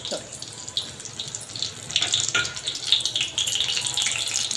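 Besan-battered green chillies deep-frying in hot oil in a kadhai: a steady sizzle with dense crackling that grows louder about two seconds in.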